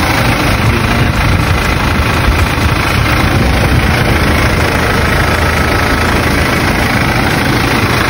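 Toyota Hiace van's engine idling steadily, heard close at the front of the van.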